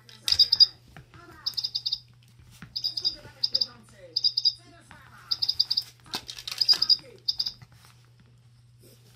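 A toy chick chirps in quick groups of three to five high electronic peeps at one fixed pitch, repeated about once a second, then falls silent for the last second or two.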